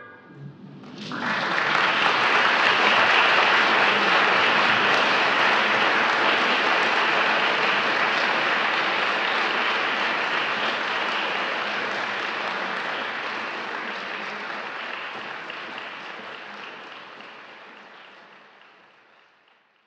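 Audience applauding after a chamber piece ends, starting about a second in, holding steady, then slowly fading out and gone near the end.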